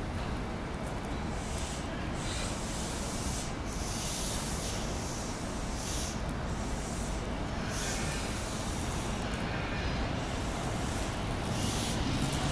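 Freight train of gasoline tank cars rolling past: a steady rumble of steel wheels on the rails, with hissing in the higher range that comes and goes.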